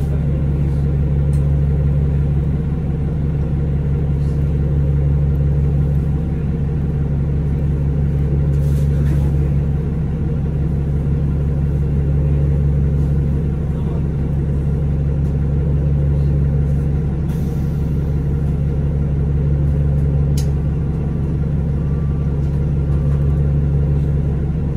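Cummins ISL9 diesel engine of a 2011 Orion VII 3G transit bus running steadily, a deep drone heard from on board, with a few light rattles.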